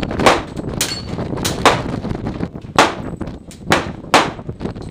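Revolver fired in a string of five loud, sharp shots at uneven gaps of about a second. A few fainter cracks fall between them.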